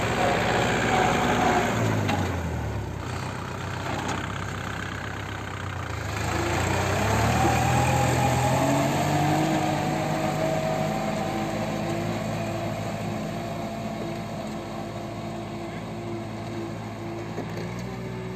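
Tractor diesel engine labouring as it pulls a five-disc plough through hard soil. Its pitch drops about two seconds in, climbs again around six seconds, then holds steady while the sound fades as the tractor moves away.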